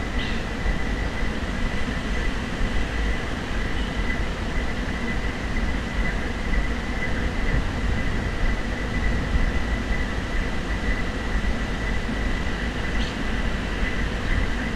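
Wind buffeting the camera microphone: a steady rumble that rises and falls, with a faint steady high whine behind it.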